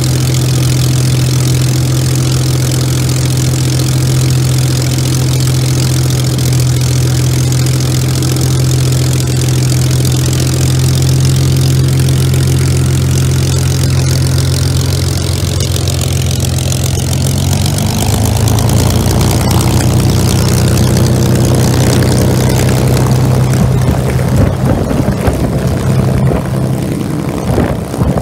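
Rolls-Royce Merlin 500 V12 engine of a Messerschmitt Bf 109 G-12 running at idle with a steady low drone, then its note rising and growing louder about eighteen seconds in as the fighter moves off to taxi.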